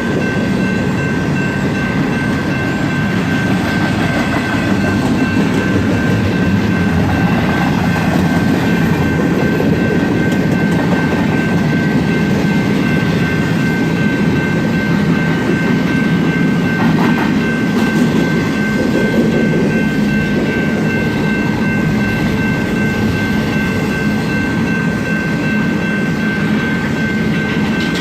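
Long BNSF freight train of empty intermodal cars rolling past at speed: a steady rumble of steel wheels on rail with some clickety-clack. A thin high-pitched ring holds steady over it.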